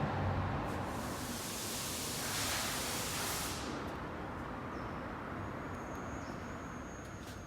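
Steady industrial machine noise, with a hiss that comes in about a second in and fades out some three seconds later; a faint high steady tone sets in near the end.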